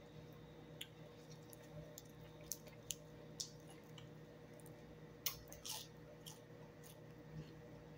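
Quiet eating sounds: scattered faint clicks and smacks from handling a leaf-wrapped bite and chewing it, the loudest about five seconds in, over a steady low hum.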